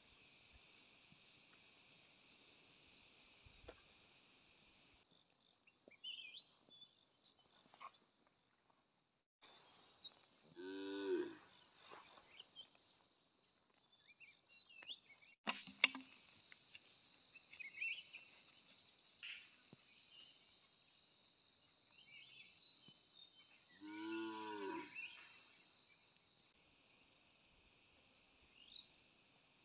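Cattle mooing: two low, drawn-out calls, each about a second long, about ten seconds in and again about thirteen seconds later. A steady high chirring of insects runs beneath.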